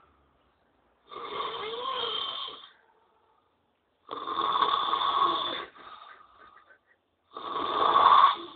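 A man snoring in his sleep: three long snores, each about a second and a half, coming about three seconds apart.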